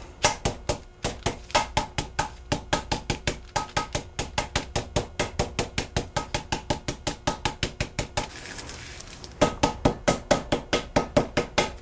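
A metal spoon-shaped meat pounder striking a veal scaloppine through parchment paper on a wooden cutting board, flattening it thin. Rapid, even blows at about four or five a second, with a short pause about eight seconds in before the pounding resumes.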